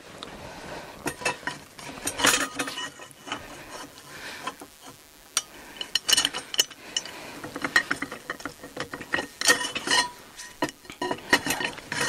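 Steel bolts being worked into the holes of a bob sleigh's log bunk to lock it: irregular metallic clinks, knocks and scraping, some with a short ring. The holes are tight, so the bolts go in with difficulty.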